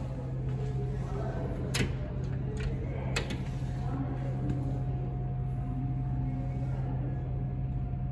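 A steady low hum with a few sharp clicks about two and three seconds in.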